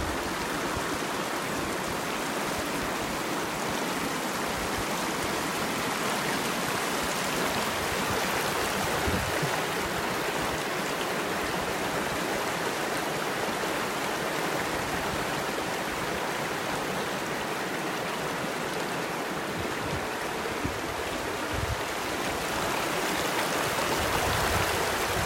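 River water running in a steady, unbroken rush.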